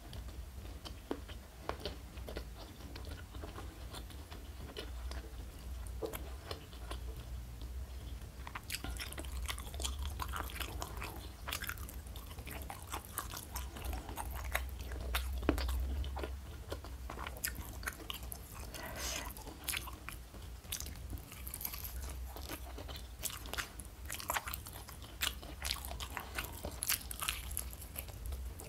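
Close-miked eating: a person biting and chewing crunchy fried food, with many irregular crisp crunches and crackles and wet chewing in between, over a steady low hum.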